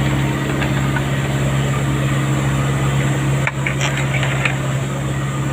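Heavy diesel engine idling steadily, a low even hum, with a few faint clicks past the middle.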